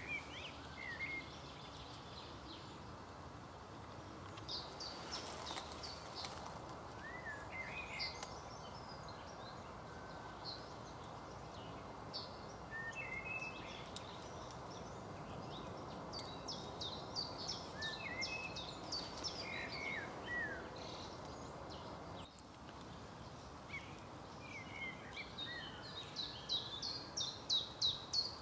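Small songbirds chirping and singing over a steady background hiss, in scattered short calls and phrases, ending in a fast run of repeated notes that grows louder.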